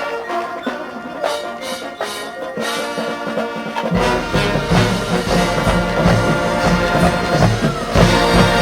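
Marching band playing its field show. About halfway through, a deep bass part comes in and the band grows louder.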